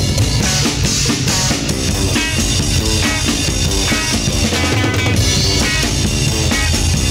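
Late-1970s experimental rock recording: a drum kit keeping a steady beat under dense, continuous instrumental playing.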